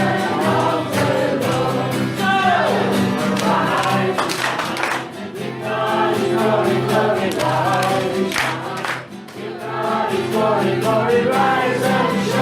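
A group of people singing a song together, many voices at once over steady held low notes.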